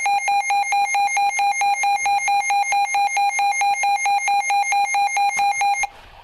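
Emergency alert tone from a weather radio alert: a harsh electronic beep at one steady pitch, pulsing rapidly several times a second, then cutting off sharply just before the end.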